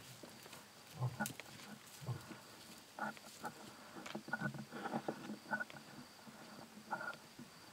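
Rhinoceroses calling to each other: a few short low grunts about a second apart, then from about three seconds in a run of brief, higher calls. A faint steady insect chirring sounds underneath.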